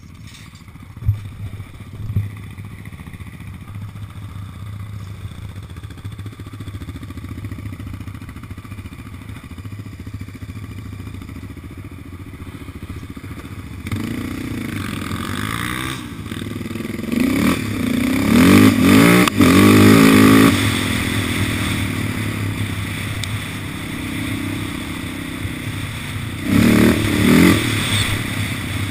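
Yamaha Raptor 700 quad's single-cylinder four-stroke engine running low and steady with two sharp knocks near the start, then revving up and pulling away, the pitch rising and falling in bursts, loudest about two-thirds of the way through and again near the end.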